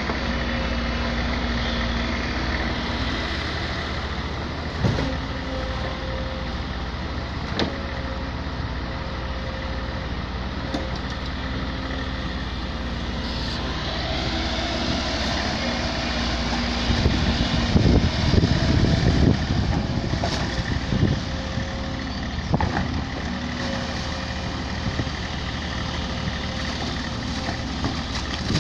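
SANY 140 excavator's diesel engine running steadily, with a faint steady whine over it. About two-thirds of the way through, heavier low rumbling comes in for a few seconds.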